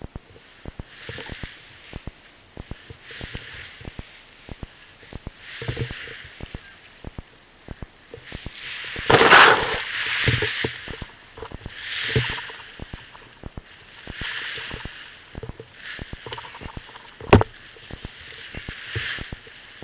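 Paraglider wing fabric swishing and rapeseed plants crackling as the canopy is pulled in and bunched up by hand: repeated rushes of rustling over many small crackles, the loudest rush about halfway through and a single sharp snap near the end.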